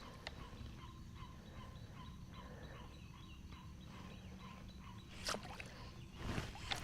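Faint animal calls repeating a few times a second in the background, then two splashy pops on the water about five and six seconds in as a popper fly is twitched across the surface.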